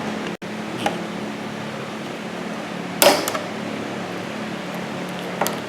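Metal tool clinks while the lock nuts on a Vespa's steering shaft are undone, with one loud ringing metal clank about halfway through and a few light clicks near the end, over a steady background hum.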